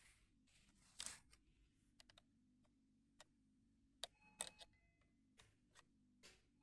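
Faint clicks and taps of RAM modules being handled and pushed into the memory slots of a mid-2011 iMac, with the loudest clicks about a second in and a small cluster about four seconds in, the latter with a brief light metallic ring.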